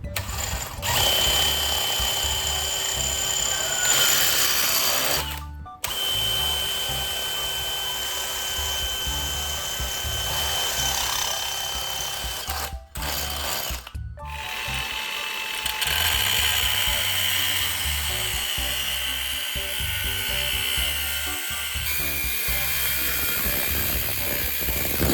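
Handheld electric power tool running under load in long steady stretches with a high whine, stopping briefly three times, over background music with a steady beat.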